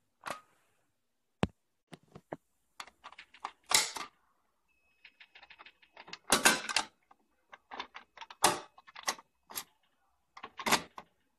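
Sharp mechanical clicks and clunks from a Fire-Lite dual-action manual fire alarm pull station being handled: the handle snapping and the station being reset, with its key rattling in the lock. A faint high steady tone sounds briefly about five seconds in.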